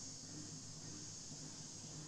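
Faint, steady outdoor ambience: a continuous high-pitched insect chorus, with a low rumble beneath.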